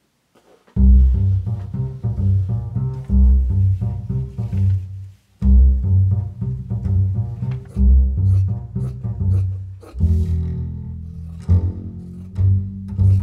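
Background music carried by a deep plucked bass line, starting about a second in, with a short break about five seconds in.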